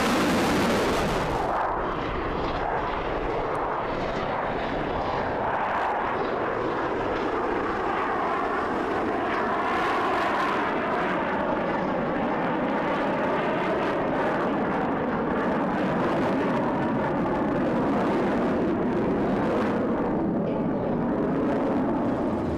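Jet engine noise of F-16 Fighting Falcon fighters flying past: a continuous rushing sound with slowly shifting pitch. A bright high hiss drops away about a second and a half in.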